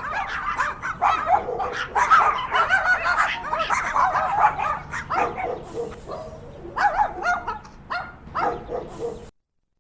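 Several dogs barking in quick, overlapping barks, with some higher yips among them. The barking thins out about halfway through, comes back in a short burst, and stops just before the end.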